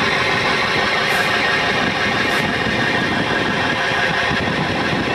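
Homemade electric outboard motor powered by an angle grinder's electric motor, running steadily at low speed on 12 volts DC: an even mechanical hum with several steady tones in it.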